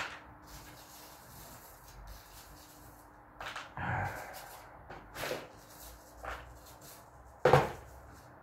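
Scattered knocks and clicks of tools and small workpieces being handled and set down on a workbench, about six of them, the loudest about seven and a half seconds in, over a faint steady hum.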